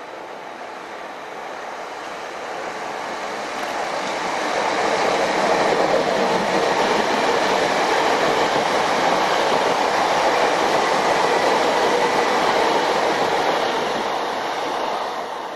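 A South West Trains electric multiple unit approaching and passing close by: wheel and track noise that swells to its loudest as the train goes past, with a faint steady whine, then fades near the end.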